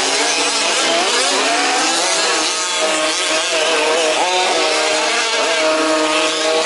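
Several 1/5-scale off-road RC cars' small two-stroke petrol engines racing, overlapping, their pitches rising and falling as they rev up and back off.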